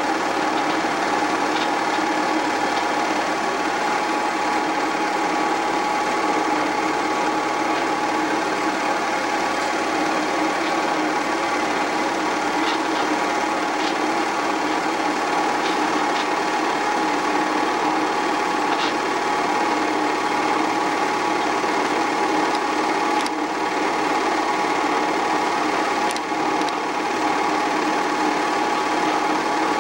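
8mm film projector running steadily: a constant mechanical whir and clatter from its motor and film drive, with a few faint ticks.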